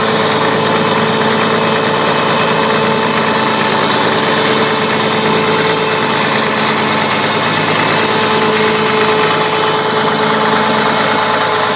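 Caterpillar heavy-equipment diesel engine idling steadily soon after a cold start in deep frost, with a diesel clatter.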